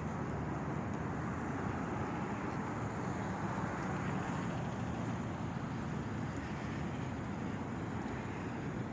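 Steady outdoor background noise, a constant even rumble and hiss with no distinct events, like distant road traffic and wind.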